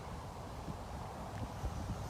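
Breeze buffeting the microphone: a steady low rumble, with a few faint soft knocks.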